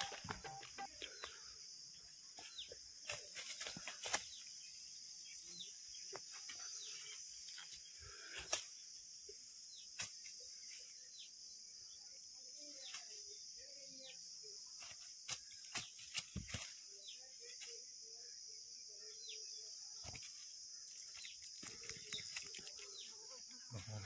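Freshly caught fish flopping on the grass and being grabbed by hand: scattered sharp thumps and rustles, loudest near the start and around the middle. Beneath them run a steady high-pitched drone and many short falling chirps.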